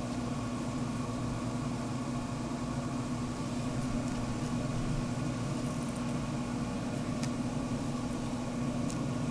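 Traeger pellet grill running at temperature, its fan giving a steady low hum, with a couple of faint clicks near the end.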